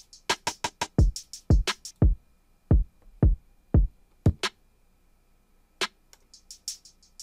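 Drum-machine beat playing back from Akai MPC Software at 87 BPM: deep kicks that slide down in pitch under quick hi-hats. About halfway through the kicks drop out, leaving one sharp snare-like hit and then a rapid hi-hat roll near the end.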